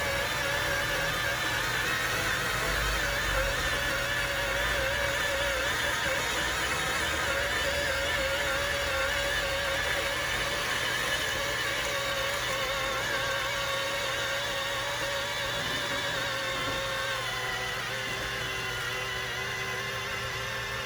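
Dyson vacuum cleaner motor running with a steady, wavering whine; the pitch shifts slightly in the last few seconds.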